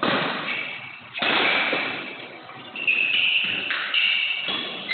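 Badminton rackets striking the shuttlecock in a rally, about five sharp hits roughly a second apart, each echoing in the hall. Short high squeaks, likely court shoes, come between the hits.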